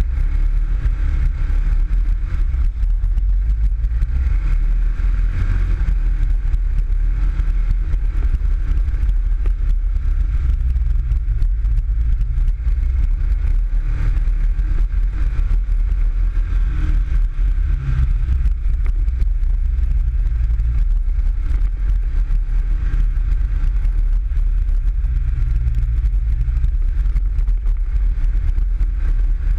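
PGO 500i off-road buggy's engine running as the buggy drives along a dirt trail, heard onboard from the open cockpit. It is a deep, steady rumble whose pitch rises and falls with the throttle.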